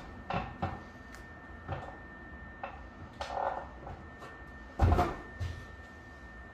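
Plaster scratcher scraping grooves into a wet base coat of plaster in short, separate strokes. There is a loud thump about five seconds in.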